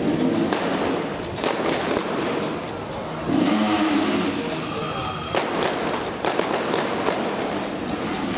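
Stunt-show pyrotechnics: sharp bangs at intervals, and about three seconds in a large gas flame effect erupts with a loud rushing burst lasting about two seconds.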